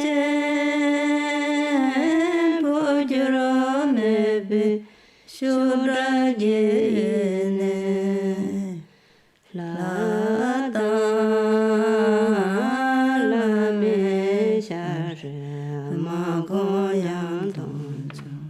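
A single voice chanting a slow, melodic chant of long held notes with small wavering turns, in three phrases broken by short breaths, dropping to a lower note near the end.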